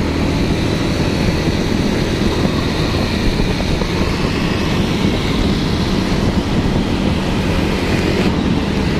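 Motorcycle riding at a steady speed: the engine's low hum under a steady rush of wind on the microphone, with no change in throttle.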